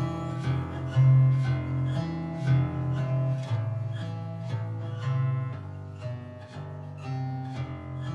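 Background music: an instrumental passage with plucked guitar notes in a steady rhythm over sustained bass notes, no singing.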